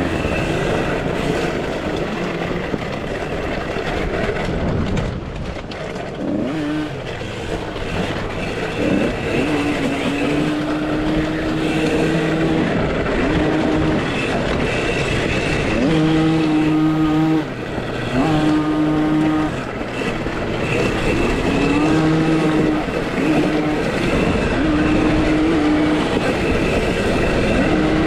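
Electric motor of a 2023 KTM SX-E5 youth motocross bike whining under throttle. Its pitch repeatedly climbs, holds level for a second or two and falls away as the rider speeds up and slows. A steady rush of wind and track noise runs underneath.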